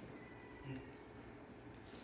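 Quiet room tone with a faint steady low hum, and one soft, brief low sound under a second in.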